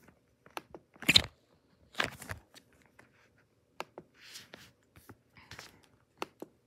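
Handling noise: irregular clicks, scrapes and rustles, the loudest about a second and two seconds in, with a softer rustle a little after four seconds.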